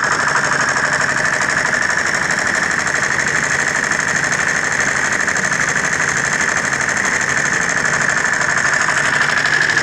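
Small diesel engine running steadily with a fast, even clatter, driving a batch concrete mixer.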